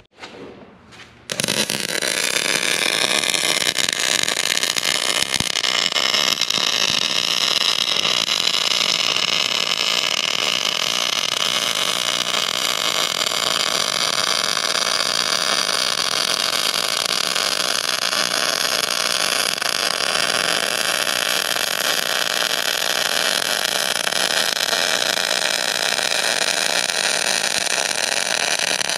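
Electric arc welding on steel: the arc crackles steadily, starting about a second in and running on without a break.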